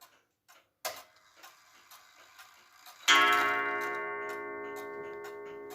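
Junghans Vienna-style wall clock ticking faintly, its escapement pallets freshly oiled. About three seconds in, one strike on its coil gong rings out and slowly fades.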